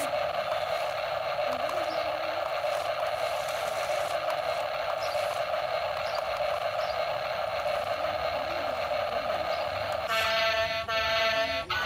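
Battery-powered RC stunt car's electric motors and gearboxes whirring steadily as it drives and turns on dirt. About ten seconds in, a loud horn-like honk with a rich, buzzy tone sounds for over a second.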